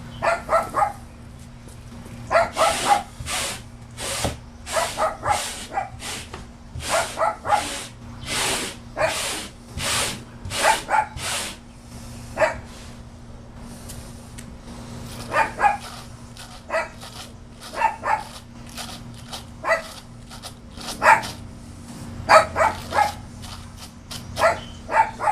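A dog barking over and over, in quick runs of barks for the first half and then more spaced single barks, over a steady low hum.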